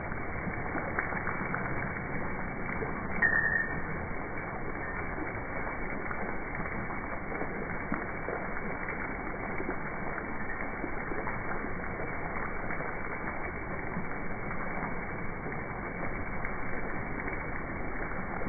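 Steady splashing of fountain water, with one short high chirp about three seconds in.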